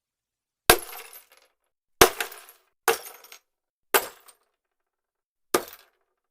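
Glass breaking five times in quick succession: each a sharp crack followed by a brief scatter of small clinking pieces.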